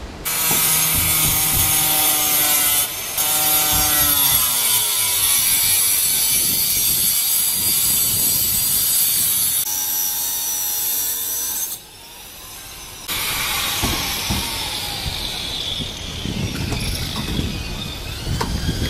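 Handheld angle grinder cutting through a steel-faced EPS sandwich wall panel along a door outline: a loud cutting hiss over the motor's whine. It breaks off briefly about three seconds in and again around twelve seconds, and after it restarts the whine falls slowly in pitch.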